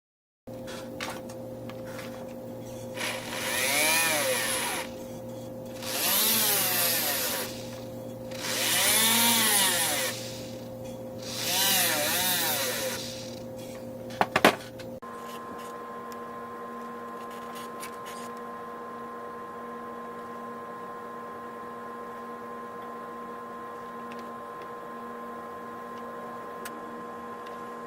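A small power tool on a jeweler's bench runs four times in short bursts, each speeding up and slowing down, followed by two sharp clicks. A steady hum is left afterwards.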